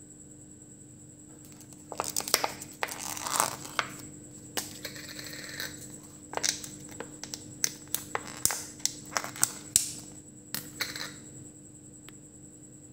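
Crinkling, crackling and sharp clicks from handling a takeaway fried-chicken meal in its cardboard box and plastic cups, starting about two seconds in and dying away near the end.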